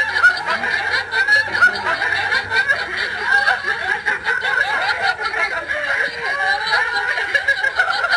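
Several people laughing without pause, many voices overlapping.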